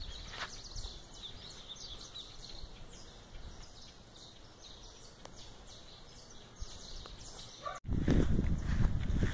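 Small birds chirping, many short high calls repeating over a quiet background. About eight seconds in they break off and louder low rustling and thudding of footsteps through grass takes over.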